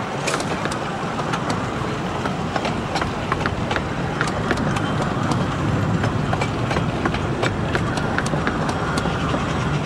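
Passenger carriages of a 15-inch-gauge miniature railway train rolling past close by: a steady rolling noise with frequent sharp clicks of the wheels over rail joints.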